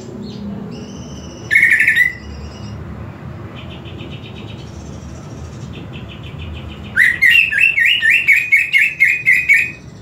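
Caged cucak ijo (green leafbird) singing. A short loud phrase comes about a second and a half in, then near the end a rapid run of about a dozen loud repeated notes, over fainter high chirping.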